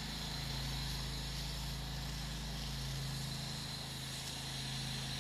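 Pressure washer engine running steadily, with the hiss of water spraying from the rinse wand.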